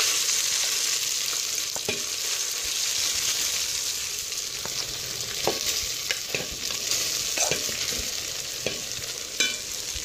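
Hot cooking oil with fried cardamom seeds sizzling in a steel pot over a lowered flame, as a layer of drained boiled rice is tipped in from a plate. Scattered clicks and taps come through, and the sizzle eases off a little over the seconds.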